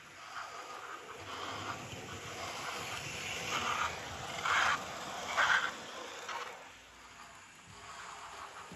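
Running noise of a Hornby TT120 model A4 locomotive and three Mk1 coaches rolling along the track: the motor and wheels rattling on the rails, growing louder as the train passes closest, with two louder rattles about a second apart, then fading as it moves away.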